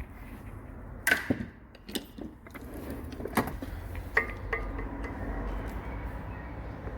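Hand tools knocking and clinking against parts of a car's rear axle and brakes as it is dismantled: about six sharp knocks spread out, the loudest about a second in and near four seconds in, over a steady low hum.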